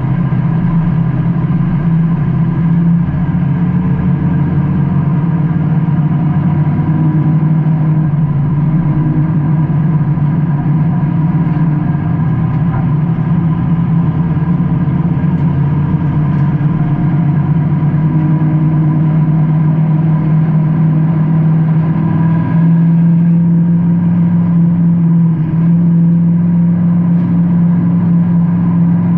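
Race car engine running continuously, heard from inside the car with road and wind noise, its pitch holding fairly steady. About two-thirds of the way through it settles into a steadier, slightly louder note.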